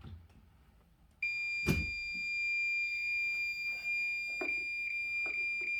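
Conventional fire alarm panel sounding a steady high-pitched tone that starts about a second in as the panel is powered on: it has come up in alarm. A sharp click sounds just after the tone starts, and a few light knocks come near the end.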